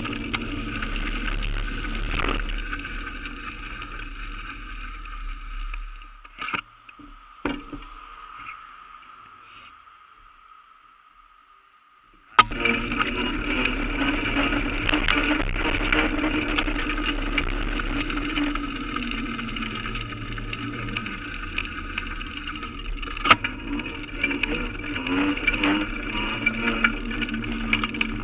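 Steady running noise of a two-wheeler being ridden through streets, picked up by a camera mounted on it. Partway through it fades away to near silence for a few seconds, then comes back abruptly with a sharp knock.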